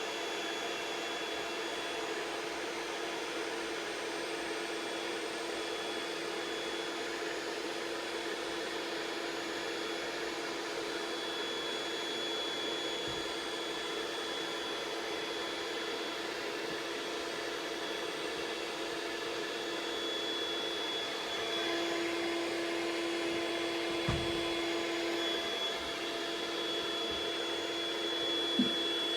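Electric air pump of an Intex air mattress running steadily, inflating the mattress, with a constant whirring hum whose tone strengthens about three quarters of the way through. Two small knocks sound near the end.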